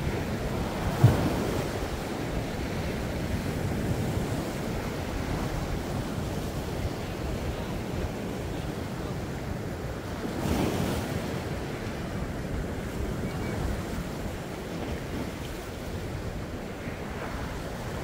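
Winter sea waves breaking against a rocky shore, a steady wash of surf with wind buffeting the microphone. A short thump about a second in, and a wave crashes a little past halfway.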